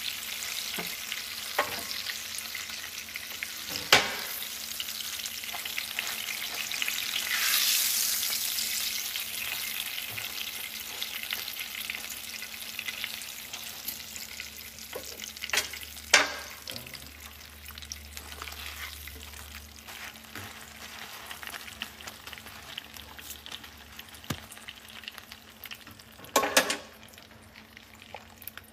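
Frying sizzle and crackle in a pan around a foil packet, slowly dying down, with a few sharp knocks of a cooking utensil against the pan.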